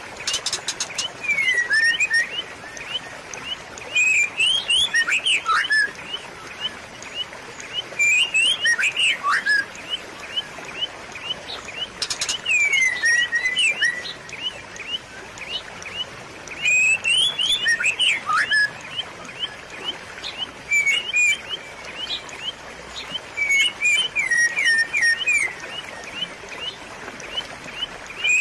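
Birds chirping: short high ticks repeating about three times a second, with louder bursts of chirps and quick whistled glides about every four seconds. Beneath them runs a faint, steady trickle of running water.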